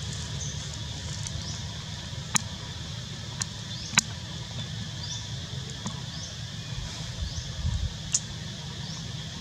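Outdoor ambience: a steady low rumble under a steady high hiss. Scattered sharp clicks, the loudest about 4 seconds in, and a few short high rising chirps. A brief flurry of low thumps comes near the end.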